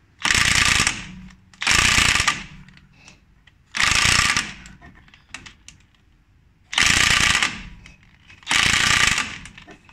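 Impact wrench hammering on a car's front axle nut in five bursts of about a second each, with pauses between. Set to its second speed, it fails to break the nut loose.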